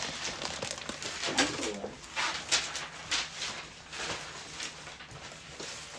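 Light handling noise at a counter: scattered rustles and clicks as things are picked up and moved. About a second and a half in there is a brief low, pitched hum-like sound.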